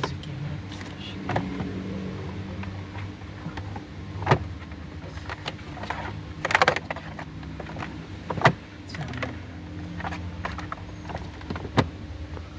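A steady low mechanical hum, with sharp metallic clinks and knocks several times. The loudest is a quick cluster about two-thirds of the way through.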